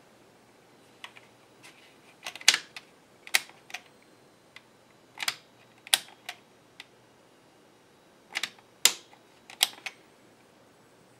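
Irregular sharp plastic clicks from keys and controls being pressed on an Epson HX-20 portable computer, about fifteen in all, with no beep from the machine in reply: it is not starting up on its temporary 4.8-volt supply.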